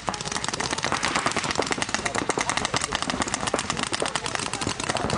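Rapid paintball marker fire from several guns at once: sharp pops overlapping many times a second without a break, with players shouting.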